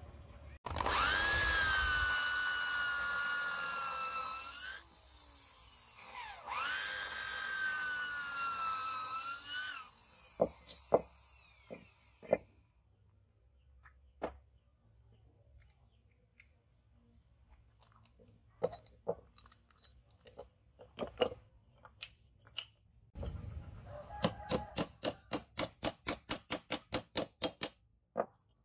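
Electric hand drill boring pin holes through wooden knife-handle scales, run twice for a few seconds each, its whine dipping under load and rising again as it frees up. Scattered light knocks follow, and near the end a quick even run of light hammer taps, about three or four a second, setting a brass pin.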